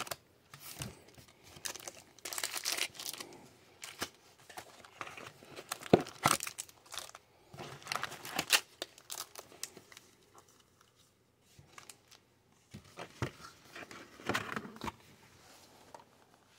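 Foil Upper Deck hockey card packs crinkling and rustling in separate bursts as they are handled and stacked. There is a quieter lull about two-thirds of the way through.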